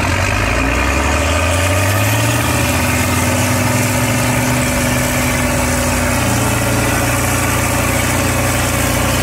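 Antique farm tractor engine running steadily at low speed, with an even firing beat.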